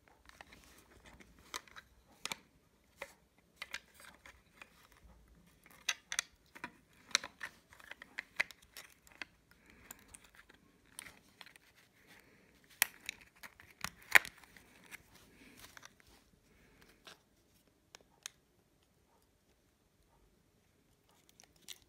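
Close-up handling noise: irregular clicks, taps and light rustling as battery cells, their wires and a plastic power bank case are handled. The clicks die away a few seconds before the end.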